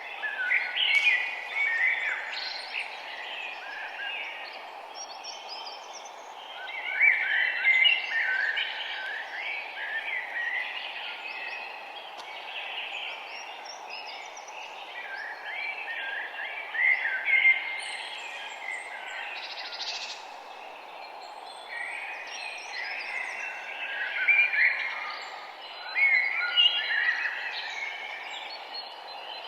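Songbirds singing and chirping in bursts of quick twittering phrases, loudest about a second in and then around 7, 17 and 24 to 27 seconds. Under them runs a steady low rushing background noise.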